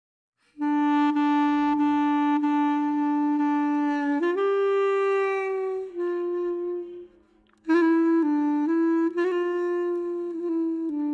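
Background music: a slow solo woodwind melody of long held notes, starting about half a second in, with a short break about two-thirds of the way through.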